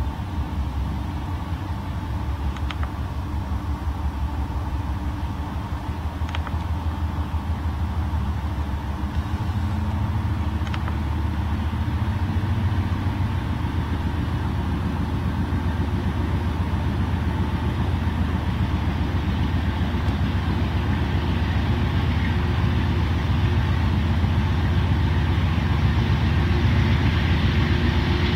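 Diesel engines of a pair of CSX GE wide-cab freight locomotives running under power as they pull a train slowly ahead, a deep steady rumble growing louder as the units come closer. A few faint clicks sound in the first half.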